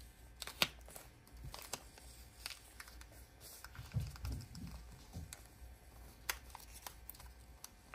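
Faint crinkling and scattered light clicks of washi tape being peeled up off a paper planner page by hand.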